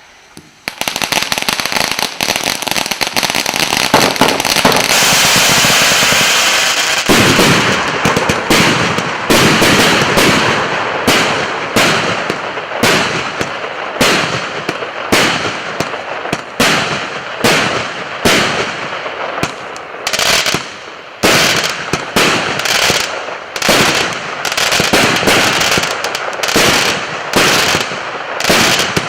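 Consumer firework battery (a 199-shot combination cake) going off: a dense crackling hiss for the first several seconds, then shots launching one after another in a steady rhythm, about one and a half a second.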